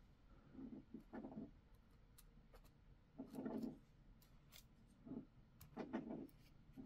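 Faint handling sounds of fine jewelry chain and small wire cutters on a flocked bead board: a few soft rustles and small clicks, the clearest about halfway through.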